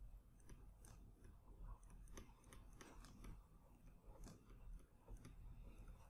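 Faint, irregular clicks and light scratches of a stylus writing on a tablet screen, several a second.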